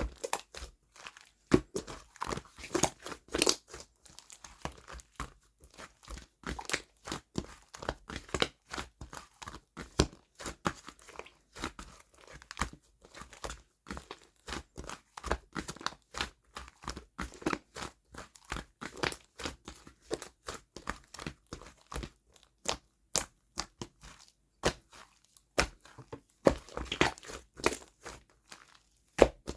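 Hands squeezing, pressing and stretching slime, giving a dense run of irregular crackles, clicks and small pops.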